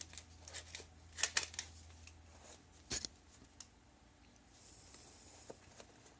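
Light handling noises of a valve and rag being adjusted in a motorcycle cylinder head: scattered small clicks and rustles, with a low hum that stops about two and a half seconds in.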